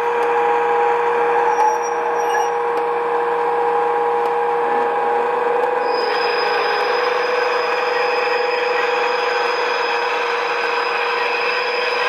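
The ESU sound decoder of an OO-scale Accurascale Class 92 model electric locomotive is playing its running sound through the model's small speaker. It is a steady electric traction whine made of several held tones over a hiss. A higher whine joins about six seconds in.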